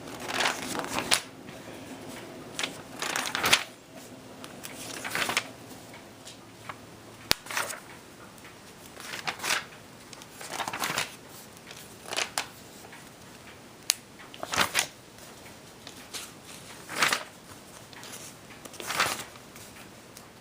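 Pages of a glossy magazine being turned one after another, a short paper rustle every second or two.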